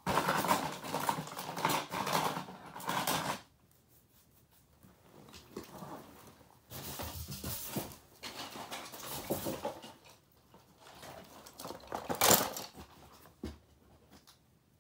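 Broken plastic fragments of a smashed cassette player being gathered up by hand, clattering and rustling in three bursts with quieter gaps between them.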